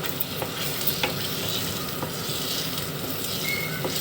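Ginger, turmeric and jaggery halwa paste sizzling as it is roasted in ghee, stirred with a spoon around the pan, with scattered clicks of the spoon against the pan.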